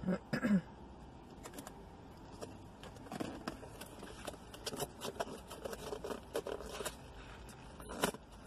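Light plastic clicks and scrapes of a takeout bowl's plastic lid being handled and fitted onto the bowl, with a sharper click near the end.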